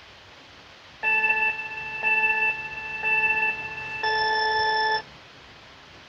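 Electronic countdown beeps: three short beeps about a second apart, then one longer beep with a brighter tone, over the steady hiss of a Dell XPS 15 laptop's cooling fan running under benchmark load.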